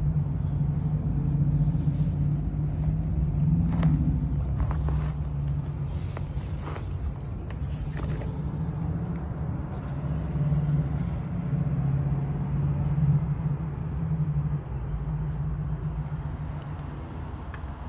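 Steady low rumble of a car engine and road noise, with a few faint clicks along the way.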